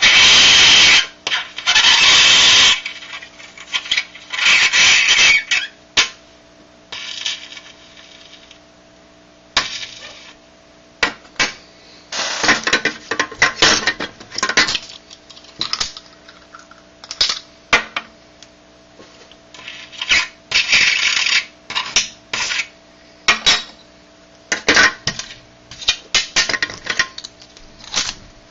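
Metal coins on dry ice, buzzing in repeated loud bursts of one to three seconds with many short clicks and rattles between. The warm coin makes the dry ice turn to gas beneath it, and the escaping gas sets the coin vibrating against the ice.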